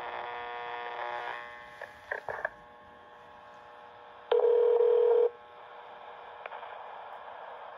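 Analog cordless phone signalling tones: a buzzy tone for about the first second and a half, a couple of short clicks, then one steady beep about a second long a little past halfway.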